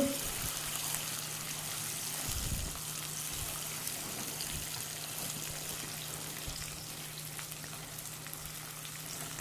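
Melted sugar and butter sizzling and bubbling in a nonstick pan while a silicone spatula stirs it: a steady, even sizzle as the butter cooks into the caramel.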